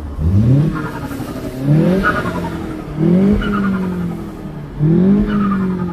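MK7 Golf GTI's turbocharged 2.0-litre four-cylinder revved in neutral four times, each blip rising quickly and falling away slowly. An engine-bay connector has been unplugged to make the turbo flutter on each lift-off, and it is very loud.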